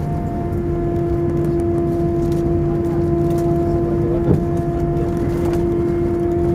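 Airbus A319 cabin noise while taxiing after landing: a steady low rumble with a steady engine hum on top, and a single short click about four seconds in.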